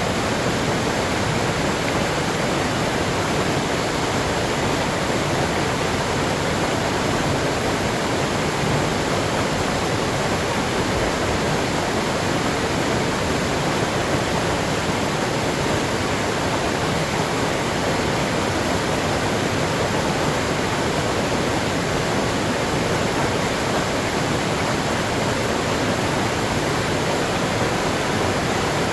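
Waterfall: water falling and rushing steadily, an even full-range roar with no breaks.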